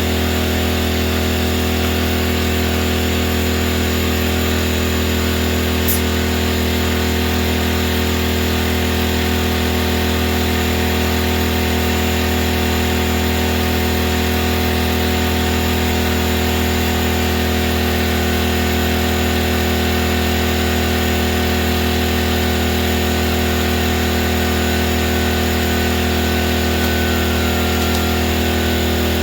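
Air compressor's motor and pump running continuously with a steady, loud mechanical hum, supplying air to seat a tire bead. A single brief click about six seconds in.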